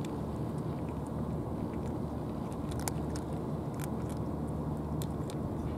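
Several cats chewing dry cat food from plastic dishes: scattered crisp crunches over a steady low outdoor rumble.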